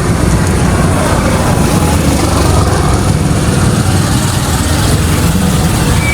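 A vehicle engine running steadily: a loud, continuous low rumble.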